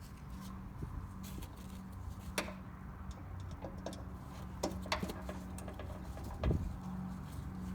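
Scattered clicks and taps of a Torx screwdriver and small metal screws being handled while the fog light's screws are taken out, over a steady low hum. The loudest knock comes near the end.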